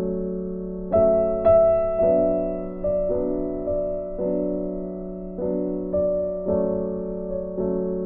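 Slow, gentle piano music, chords struck about once a second and left to fade over a held low note.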